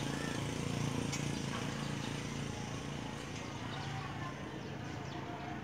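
A steady low engine hum runs throughout, with a few faint clicks over it.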